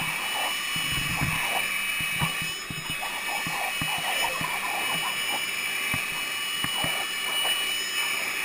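Corded electric leaf blower running steadily with a constant whine, while a boxer dog snaps and bites at its nozzle, giving irregular clacks and knocks over the blowing.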